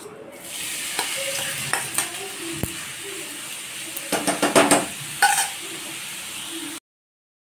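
Grated papaya dropped into hot oil in a nonstick kadai, setting off a steady sizzle. A steel spoon scrapes and taps the last shreds off a steel plate, in a quick run of clinks about four seconds in, and the sound cuts off abruptly near the end.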